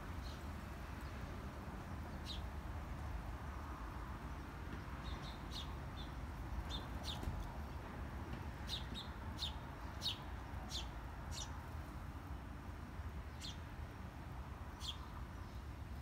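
Sparrows chirping: short, high single chirps, scattered at first and coming thick and fast in the middle, over a low steady rumble of background noise.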